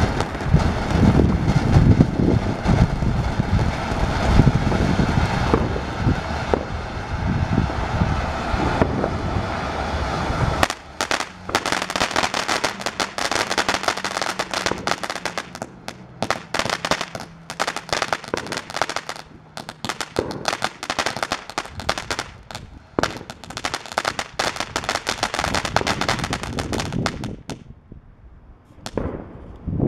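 A consumer firework fountain, TNT's Mad Trolls, spraying with a steady rushing hiss. About a third of the way in it changes to dense, rapid crackling, which thins out and fades near the end.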